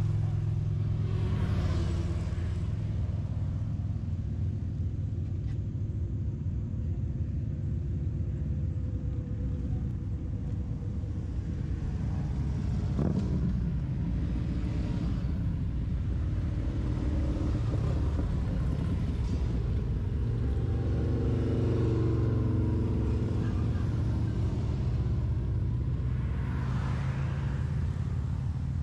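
Vehicle engine running steadily under way, heard on board with wind and road rush; the engine note rises and falls a little, and a few brief swells of rushing noise come and go.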